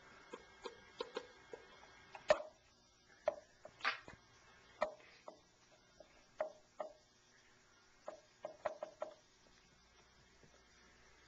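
Plastic chess pieces knocked and set down on a board: a scatter of light clicks and taps. There is one louder knock about two seconds in and a quick cluster of taps near the end.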